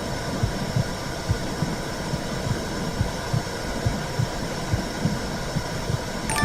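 Womb sound: a heartbeat's regular low thumps over a steady rushing hiss.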